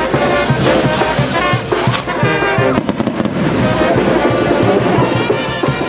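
Brass band music playing over fireworks crackling and popping, with sharp cracks throughout, the strongest about two seconds in.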